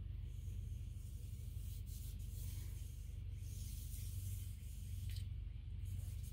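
Faint scratchy rubbing of a thin applicator stick working solvent into a narrow trough, coming and going, over a steady low hum.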